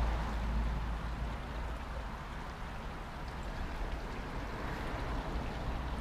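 Steady rush of a shallow river running over rocks, under a constant low rumble.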